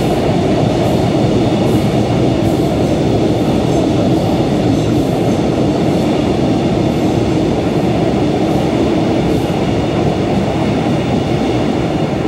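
Caledonian Sleeper Mark 5 sleeper coaches running through a station: a steady rumble of the passing train, with wheels clicking over rail joints a little more than once a second. The clicks stop about three-quarters of the way through as the tail of the train passes.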